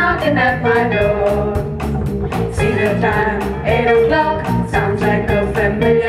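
Upbeat bluesy band music with a steady beat of about three strokes a second under a shifting melody line.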